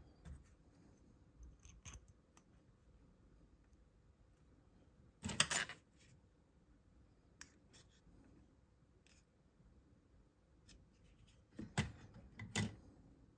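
Faint handling sounds of small parts and tools on a tabletop: scattered light clicks and rubs, with a louder clatter about five seconds in and two more near the end.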